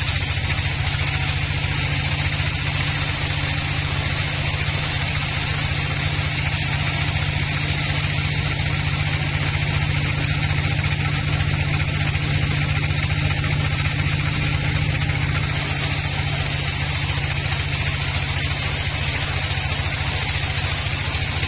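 Band sawmill running steadily as its blade cuts a slab lengthwise off a log: a constant low motor hum under an even hiss of the blade in the wood.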